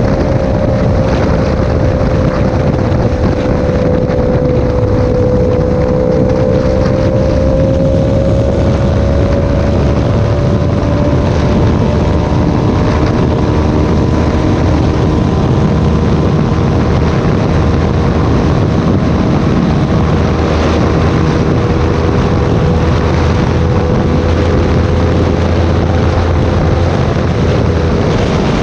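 Yamaha R3 parallel-twin engine with an aftermarket full exhaust pulling hard at highway speed, its note holding fairly steady with a slight dip and rise in pitch as the bike gains speed from about 110 to 130 km/h. Heavy wind buffeting on the microphone runs under it.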